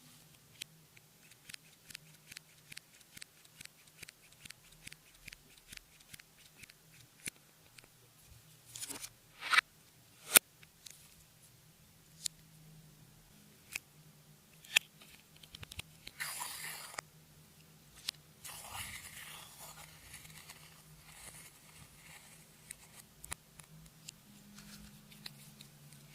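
Clear slime being worked by hand with makeup and glitter mixed in. It gives a run of small sharp clicks and pops, about two a second, then a few louder crackles and some scratchy, crunching stretches.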